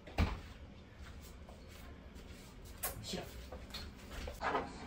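A single sharp knock just after the start, like a door or container being shut, then a few light household clicks and short bursts of laughter near the end.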